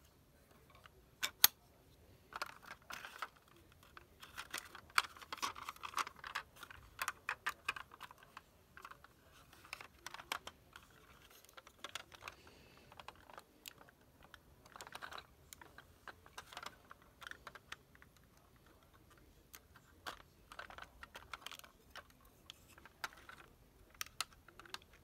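Irregular clicks, taps and light rattles of hard plastic as a toy McLaren model car is handled and turned over in the hands and its doors are swung open.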